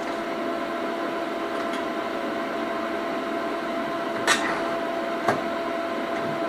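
A steady electrical hum made of several faint fixed tones, with two light clicks about four and five seconds in.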